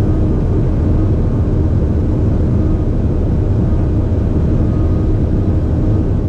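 Twin-turbo Audi R8 V10 at a sustained speed of around 285 km/h, heard from inside the cabin: a steady, dense drone of engine, tyre and wind noise, heaviest in the low end.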